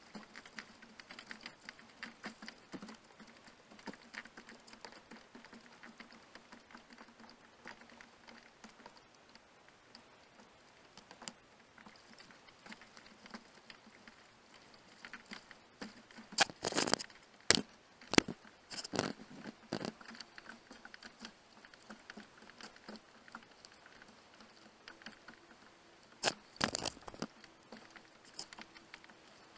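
Irregular patter of small clicks and crackles, with a cluster of louder knocks about halfway through and another near the end.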